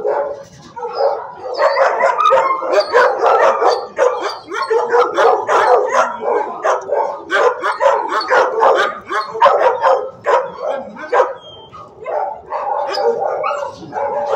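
Shelter dogs barking in a kennel block: a dense run of overlapping barks that eases briefly about three-quarters of the way through and then picks up again.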